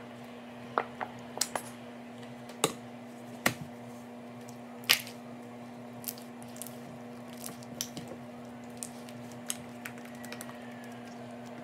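Homemade slime being kneaded and stretched by hand, giving irregular sticky squishes, clicks and pops.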